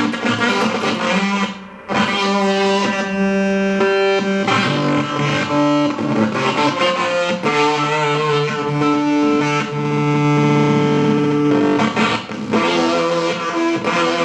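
Electric guitar played through a Barahunda fuzz pedal: a quick run of picked notes, then long held fuzzed notes from about two seconds in, with faster playing coming back near the end.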